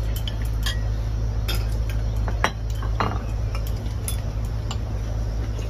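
Chopsticks and spoons clicking and clinking against porcelain bowls and plates as people eat, in scattered light taps with a few louder ones about halfway through, over a steady low hum.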